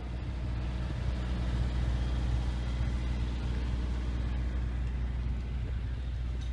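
Heavy vehicle idling: a steady low hum with a rumble underneath.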